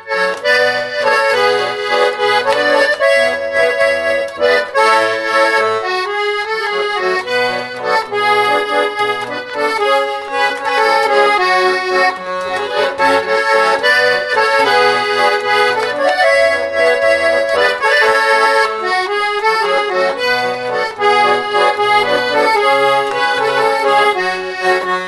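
Garmon, a Russian button accordion, playing an instrumental introduction to a folk song: a melody with chords over a steadily pulsing bass accompaniment.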